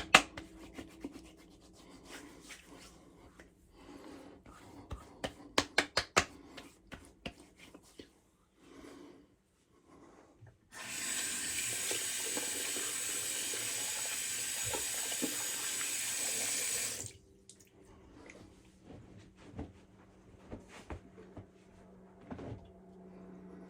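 A water tap running into a sink for about six seconds, starting about eleven seconds in and shutting off abruptly. Before it, a quick series of sharp clicks and taps, and a few fainter clicks after.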